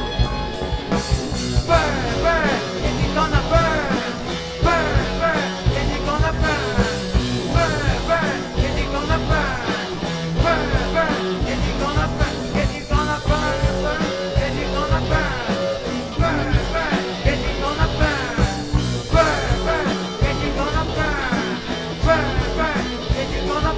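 A live rock band playing a loud, driving rap-rock song: distorted electric guitars, electric bass and drum kit, with a singer at the microphone.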